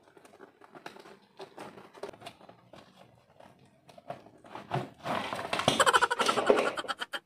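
Handling of a cardboard box: light taps, scrapes and clicks, then, about five seconds in, a loud burst of scraping and rustling packaging as the ring light is pulled out of the box, ending in a quick run of sharp clicks.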